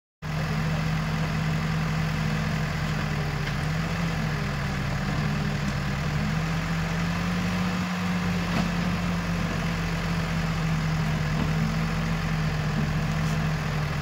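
Diesel engines of a farm tractor and a backhoe loader idling steadily, an even low hum with no revving.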